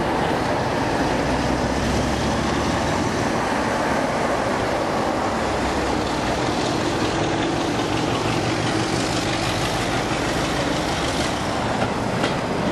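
A Class 47 diesel locomotive and a second diesel locomotive drawing a train slowly past, with their engines running under power in a steady, loud drone. A few sharp clicks from the wheels on the rail joints come near the end.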